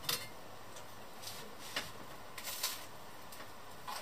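A fork scraping and clicking against a frying pan while eating, a handful of short separate strokes, the loudest right at the start and a quick pair about two and a half seconds in.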